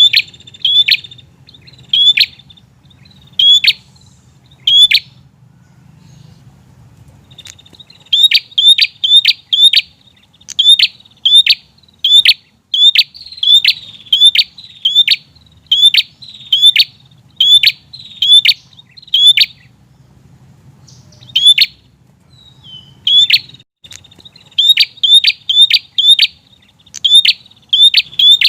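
A prinia (prenjak) calling persistently: short, sharp, high chip notes repeated in quick runs of about two a second, with pauses of a few seconds between runs.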